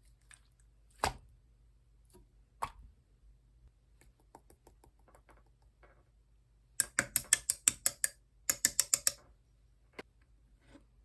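Slime being pressed and squeezed by hand, making crisp clicking pops as the air pockets burst: a few single clicks, then two quick runs of about ten clicks each in the second half.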